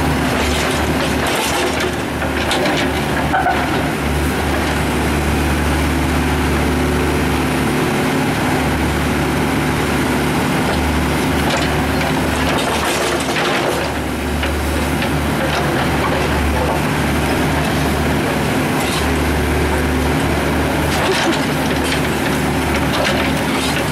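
John Deere backhoe's diesel engine running steadily under load, with the steel bucket scraping and knocking on broken concrete and gravel several times.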